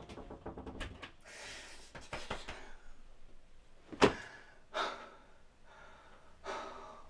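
A young man gasping and breathing hard in several heavy breaths, with rustling of bedding at the start. A single sharp thump about four seconds in is the loudest sound.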